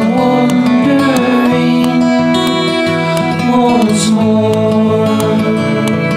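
Background song: acoustic guitar accompaniment with a singer holding long notes between lyric lines.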